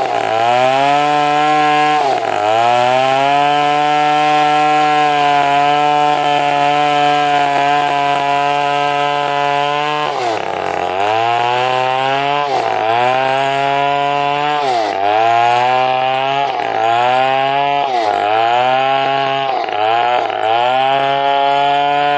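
Stihl chainsaw running at high revs while ripping an angsana log lengthwise into planks. Its pitch dips and recovers each time the chain bogs in the cut, twice early on and then in quick succession through the second half.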